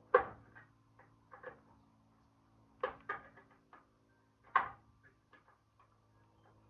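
Hand work on the van's rear door: a series of sharp knocks and clicks, about five or six in all, the loudest just after the start and another about four and a half seconds in, over a faint steady hum.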